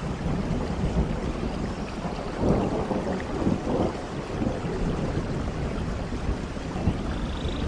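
Rain falling steadily, with low rolling thunder rumbling underneath that swells from about two and a half seconds in.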